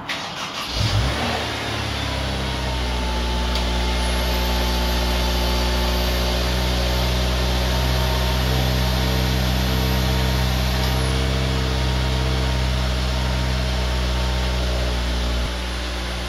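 Honda S2000's 2.0-litre F20C four-cylinder engine starting and settling into a steady idle, which steps down a little near the end. A faint high whine sounds for several seconds in the middle.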